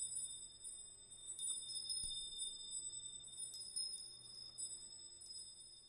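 Faint, high-pitched chime tones, struck again and again and left to ring and overlap, opening a music track.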